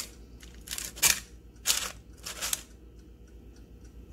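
Parchment paper liner crinkling in an air fryer basket as cooked salmon patties are lifted and flipped by hand, in three short rustles.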